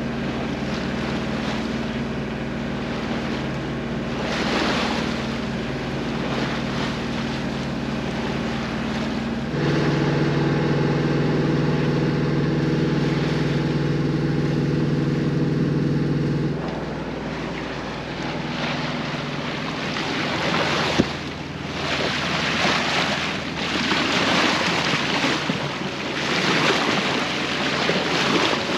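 A sailboat's inboard engine runs steadily while motoring through a calm, with a sudden change in its tone about ten seconds in. A little past halfway the engine gives way to the rush and splash of water along the hull and bow, coming in surges, with some wind.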